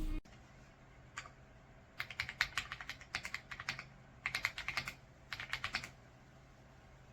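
Typing on a RedThunder K95 mechanical keyboard with pre-lubed linear switches: one keystroke, then three quick bursts of rapid keystrokes.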